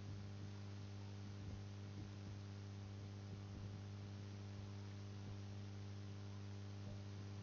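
Steady electrical mains hum with background hiss, picked up by the recording, with a few faint ticks.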